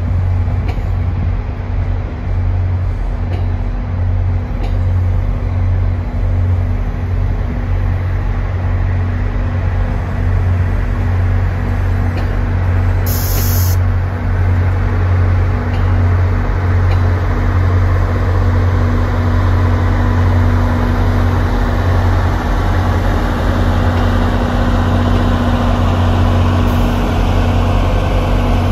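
Diesel locomotive engine running steadily with a deep drone and a steady hum above it. A short sharp hiss of air comes about halfway through.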